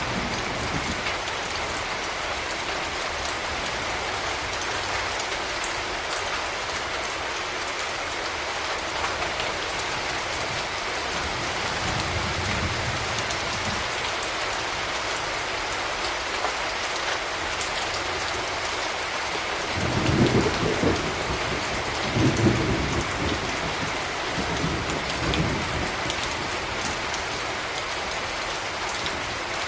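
Steady rain falling in the city, an even hiss. About two-thirds of the way through come a few low rumbles, the loudest moments; a fainter one comes a little before halfway.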